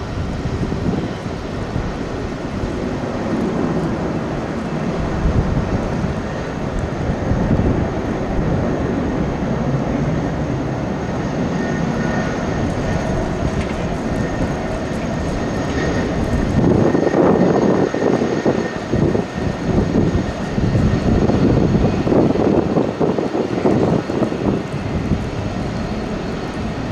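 Jet engines of a Delta Air Lines Airbus A330-300 running with a steady whine over a rough rumble, growing louder about two-thirds of the way through. Gusty wind rumbles on the microphone.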